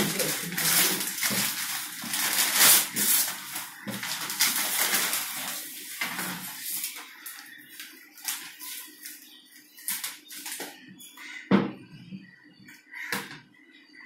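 Paper being torn and crumpled off a plastic bucket, a rough crackling rustle full of sharp rips. After about seven seconds it gives way to quieter, scattered knocks and rustles as the bucket is handled and tipped.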